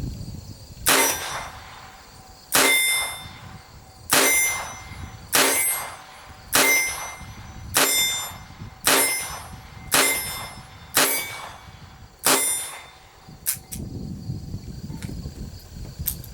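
Ruger GP100 .22 LR revolver fired ten times in double action, about one shot every second and a quarter, each shot followed by a short ring. The last round is a weak, underpowered one from cheap bulk ammunition.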